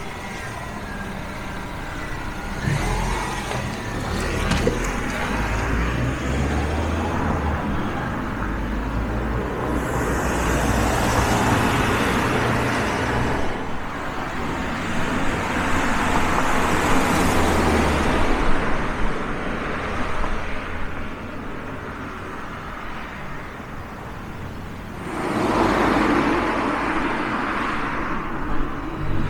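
Peugeot RCZ 1.6 16V's four-cylinder petrol engine running, its sound swelling and easing back three times: about ten, fifteen and twenty-five seconds in.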